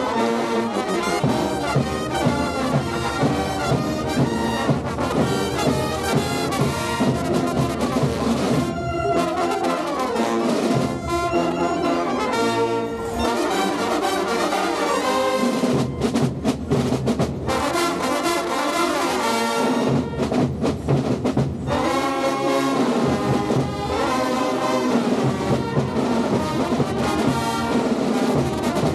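Brass band playing a Gilles carnival tune, with drums beating a steady rhythm under the brass.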